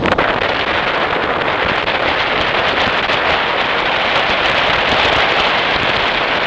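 Wind buffeting the microphone of a camera in a moving car: a loud, steady rush full of small crackles, with road noise under it.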